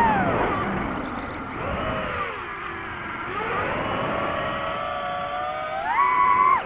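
Drone's electric motors and propellers whining, picked up by the drone's onboard microphone, the pitch falling and rising as the throttle changes. It holds high briefly near the end, then drops sharply.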